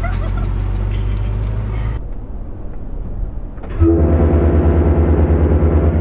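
A car engine running low, then about four seconds in a loud blast from a car-mounted train air horn, a steady chord of several tones over a pulsing low rumble, held for about two seconds.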